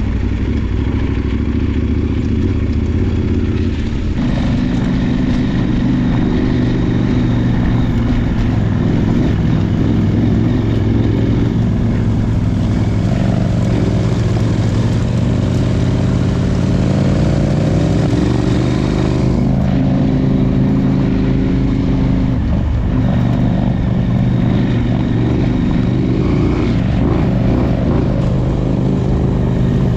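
Adventure motorcycle's parallel-twin engine running under way, its note shifting up and down a few times with throttle and gear changes, over a steady rush of wind and riding noise.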